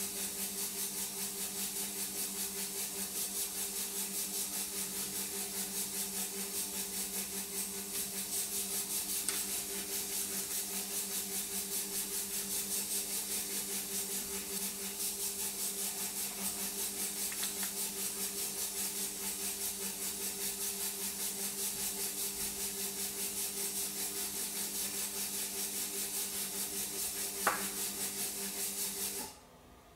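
A steady background hum with a hiss, holding several steady low tones, that cuts off suddenly near the end. A couple of faint light clicks, once about nine seconds in and again near the end.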